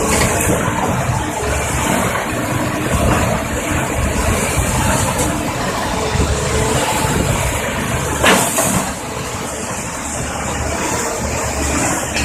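Caterpillar 320D tracked excavator's six-cylinder diesel engine running steadily as the machine works, with one sharp clank a little past eight seconds in.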